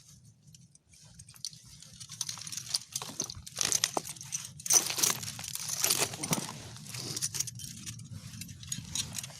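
Rustling and crunching with scattered metal clinks as a poacher's steel trap and its chain are worked loose from an alder trunk by hand, busiest and loudest in the middle.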